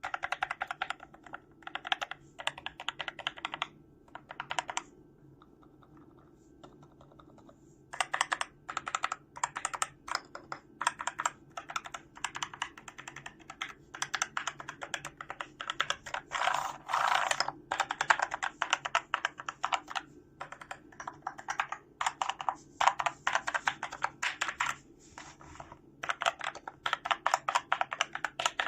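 Typing on the IO Typex V2, a 60% mechanical keyboard: quick runs of key clicks for a few seconds, a pause of about three seconds, then dense, fast typing.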